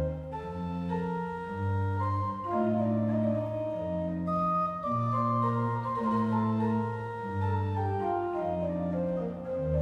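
Church pipe organ playing the closing voluntary after the service: slow, held chords that change about once a second over a deep bass line, with the top voice stepping downward through the second half.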